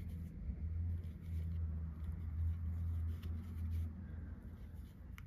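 Steady low hum with a few faint clicks and rustles of a crochet hook working cotton yarn, as stitches are decreased to close a stuffed amigurumi piece.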